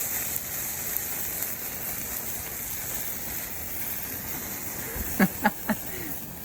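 Water sizzling in a burning plastic coffee maker whose heating element runs with its thermal cutout disabled: a steady hiss of steam and fire, with three short sharp pops close together about five seconds in. The water is not putting the fire out.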